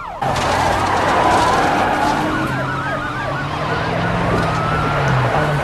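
Police car sirens on the episode's soundtrack, several at once: quick rising-and-falling yelps repeating a few times a second over a slower wail. A hiss of traffic noise comes in just after the start.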